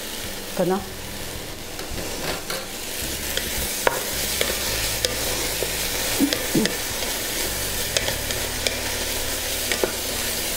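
Paprika and goya (bitter melon) sizzling as they are stir-fried over high heat in a stainless steel pot, with a steady hiss and scattered sharp clicks as a wooden spatula stirs and knocks against the pot.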